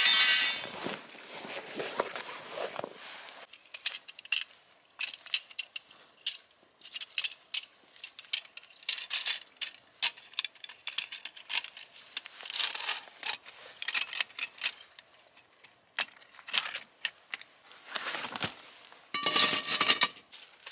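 Handling of camping gear: a fabric gear bag rustling, then many sharp metallic clicks and clacks as a folding metal stand is unfolded and set up. Near the end a frying pan is set down on the metal stand with a ringing clank.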